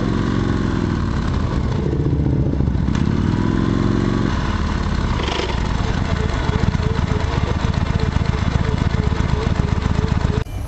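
Motorcycle engine running at low speed, its revs rising and falling over the first few seconds, then settling into a steady, pulsing low run. The sound cuts off suddenly near the end.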